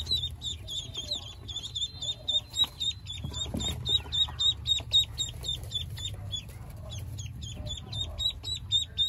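Ducklings peeping steadily: a rapid, continuous run of short high-pitched peeps, about five a second.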